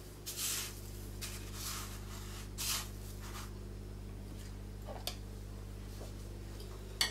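Soft rustles of a raw chicken nugget being pressed and turned in a bowl of coarse cracker breadcrumbs, then a small click and a light tap near the end. A steady low electrical hum runs underneath.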